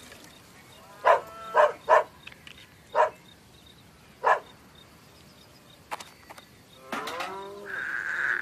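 Cartoon bull vocal effects: five short moo-like calls in quick succession, then a longer falling call near the end, followed by a steady high whistling tone.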